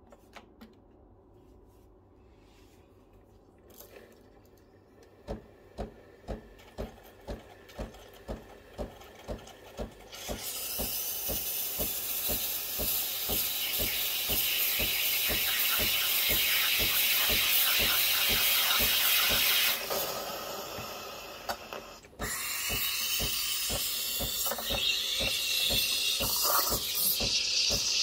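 Breville Barista Pro steam wand: the machine pulses about twice a second for a few seconds, then steam hisses loudly from the wand as it purges. After a short drop about two-thirds of the way through, the hiss starts again as the wand goes into a jug of milk.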